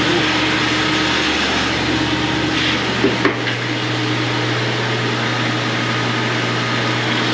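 Massey Ferguson 1155 tractor driving a grain auger that is loading corn: a loud, steady mechanical running noise with a constant low hum. Two short clicks come about three seconds in, and the deepest rumble drops away right after them.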